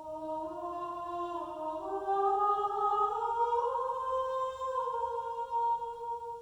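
Recorded music played back through Focal Chora 826 loudspeakers: slow, held notes in several parts that glide gently upward together, in the manner of a vocal ensemble. It fades in at the start and dips near the end.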